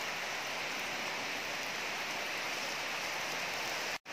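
Rain falling steadily, an even hiss that cuts off abruptly near the end.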